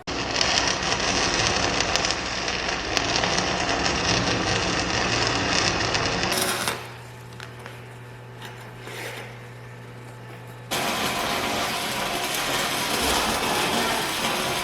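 Electric arc welding crackling steadily. The crackle cuts in suddenly, drops to a low steady electrical hum for a few seconds midway, then starts again.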